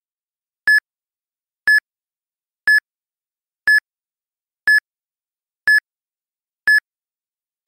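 Countdown timer beeping once a second: short, high electronic beeps with silence between them, marking off the seconds left to answer.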